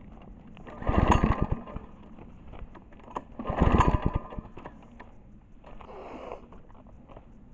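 Two pulls on the recoil starter of a small Harbor Freight mower engine. Each cranks the engine over briefly with a quick run of chugs, and it does not start. It won't crank because the throttle was set to the kill position.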